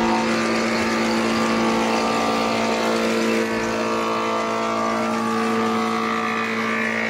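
A motor-driven machine running steadily with a strong, even hum.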